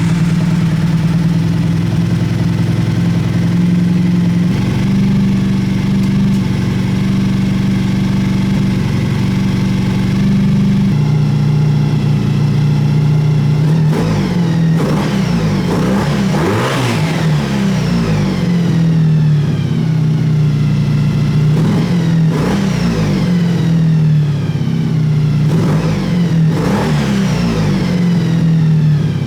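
Honda VF1000 V4 motorcycle engine idling steadily, then revved several times in the second half, its pitch climbing and falling with each blip. It runs smoothly with a new CDI fitted, seemingly firing on all four cylinders.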